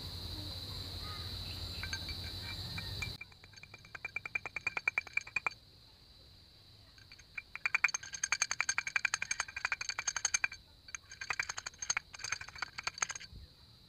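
Rapid light metallic tapping in three bursts, a metal tool driving a new bearing into a scooter's torque drive pulley. For the first three seconds a steady high whine and low hum run, then cut off suddenly.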